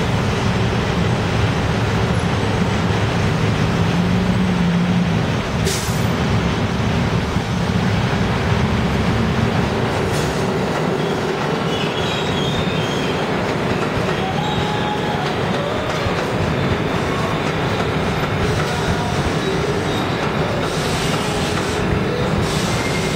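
Street traffic for the first several seconds. About six seconds in, it gives way to a New York City subway train running through a tunnel and past a station: a steady rumble of wheels on rails, with faint high wheel squeals.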